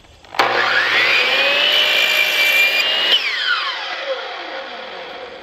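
DeWalt 12-inch mitre saw with a Diablo 44-tooth carbide blade switched on, its whine rising as the blade spins up, then running through a cut in a thin sheet of OSB. About three seconds in the trigger is released and the blade winds down with a long falling whine.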